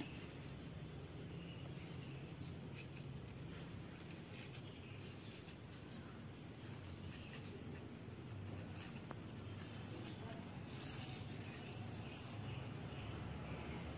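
Faint rubbing and light ticks of a telescopic fiberglass fishing pole's sections sliding out one by one, over a low steady background hum.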